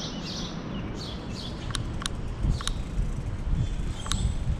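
Birds chirping, a run of short falling chirps, over the steady low rumble of wind and tyres heard from a camera riding on a bicycle. A few sharp clicks and low thumps come in the second half.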